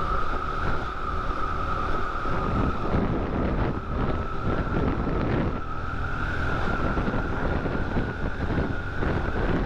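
Motorcycle cruising at road speed, heard from the rider's seat: the engine runs under a heavy rush of wind on the microphone, with a steady high whine over it.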